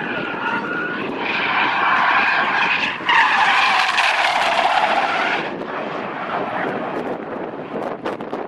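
Car tyres squealing through a long drift, swelling about a second in and loudest for a couple of seconds before dying away into road and engine rumble.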